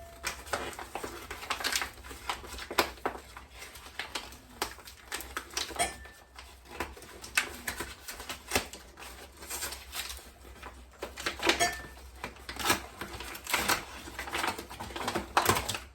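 Irregular clicks, taps and knocks of kitchen items being handled: a cup and a bowl being picked up and set down, a few sharp knocks every second.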